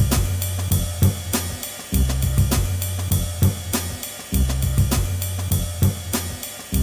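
Background music with a steady drum-kit beat: snare, hi-hat and cymbal over a deep bass line.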